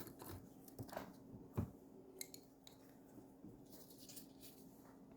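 Faint, scattered clicks and taps of small items being handled on a desk, over a low steady hum.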